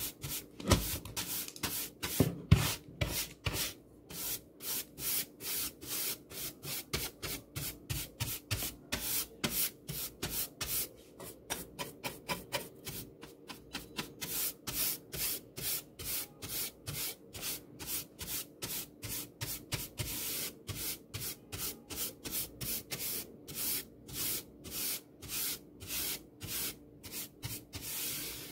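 Bristle hand brush swept back and forth across a wooden tabletop: quick, even brushing strokes, about two or three a second, with a couple of louder knocks in the first few seconds.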